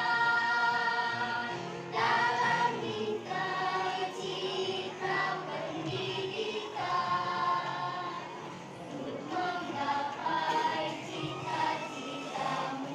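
Choir singing with musical accompaniment, holding sustained notes that change every second or so.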